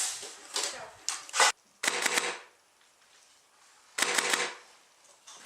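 Airsoft gunfire: several short bursts of rapid shots with near silence between them, the last about four seconds in.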